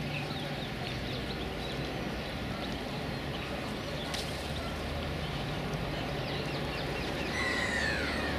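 Outdoor waterside ambience: small birds chirping again and again over a steady low hum. Near the end, a louder bird call slides down in pitch.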